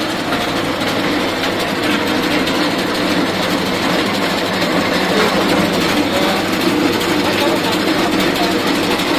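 V Agro Tech arecanut dehusking machine running steadily and loudly, its motor and drum churning areca nuts and stripping their husks in one continuous dense noise.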